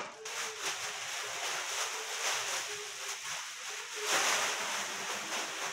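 Thin plastic shopping bag rustling and crinkling as it is handled and a pizza pan is pulled out of it, loudest about four seconds in.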